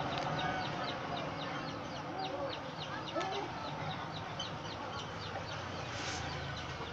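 Chickens clucking now and then over a steady run of high, quick chirps, about four a second.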